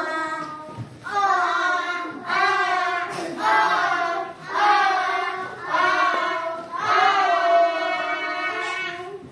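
A small group of young children singing a tune together in unison, a run of held notes about a second apiece with short breaks between them.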